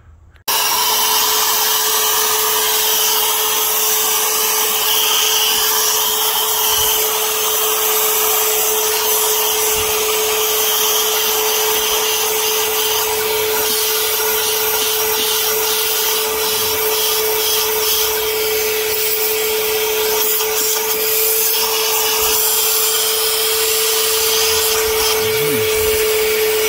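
Vacuum running steadily with its narrow hose nozzle inside an engine intake port, sucking out loosened carbon while the carboned-up intake valves are cleaned. It switches on about half a second in and holds one constant pitch: a steady hum with a rushing hiss above it.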